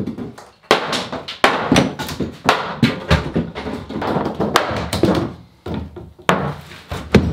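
Hammer strikes knocking apart a particleboard kitchen cabinet, held together with glue and ring-shank nails: a series of about ten sharp wooden knocks at irregular spacing, some in quick pairs.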